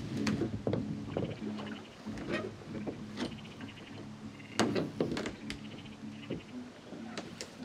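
Irregular hollow knocks and scrapes against a small boat's hull as someone shifts about in it at the water's edge, the loudest knock about halfway through. A steady low hum and faint repeated chirps run underneath.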